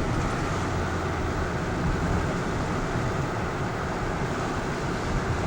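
A car driving, heard from inside the cabin: steady engine and road noise with no breaks.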